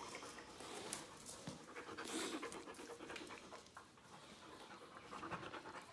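Dog panting quietly, with faint scattered clicks throughout.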